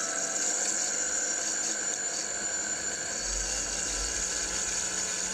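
Spin motor of a homemade rotor balancing rig running the rotor at speed, a steady whine with several tones; the rotor carries two taped-on washers as deliberate unbalance weight. A low rumble joins about three seconds in.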